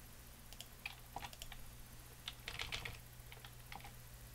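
Computer keyboard keys tapped faintly in short irregular clusters, the keystrokes of stepping through animation frames and setting keyframes in Blender, over a steady low hum.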